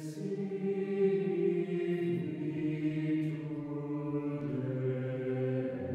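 A choir chanting long held chords, as in Orthodox liturgical chant, with the chord changing about two seconds in and again near the end.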